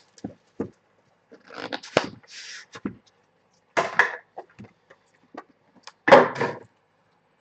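Trading-card boxes and packaging being handled: a string of short scrapes, rustles and taps, with a sharp click about two seconds in and the loudest rustle about six seconds in.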